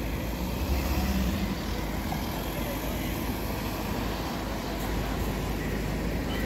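Street traffic noise: cars driving past close by at low speed, with a louder low engine rumble about a second in.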